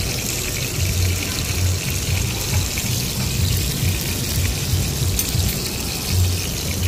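Porterhouse steak sizzling steadily in its butter and juices on a hot serving platter, a dense crackling hiss, with music and a low beat underneath.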